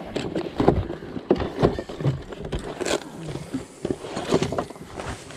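Fishing tackle being rummaged through on a boat deck: irregular knocks, clicks and plastic rustling as lures in plastic sleeves are handled.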